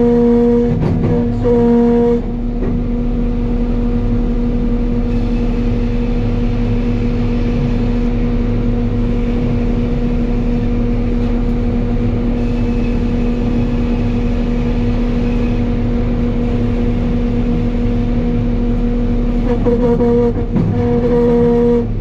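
Sawmill headrig machinery running with a loud steady hum. It is louder and choppy for about two seconds at the start and again near the end, while a log is carried past the saw in between.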